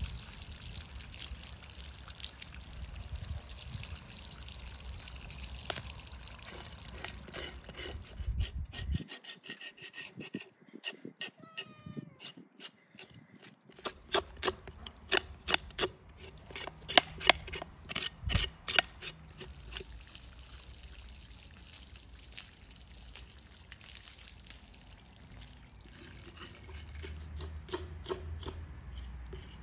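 Water from a garden hose splashing over a sturgeon head on a wooden stump. Then a large knife cuts through the head in a series of sharp strokes, about two a second, before a steadier background returns.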